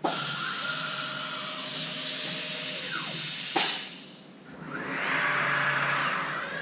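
CNC milling machine contouring a block of stock: steady hissing cutting noise with a faint whine from the spindle. A sharp knock comes about three and a half seconds in, the noise dips briefly, then it swells again as the cut carries on.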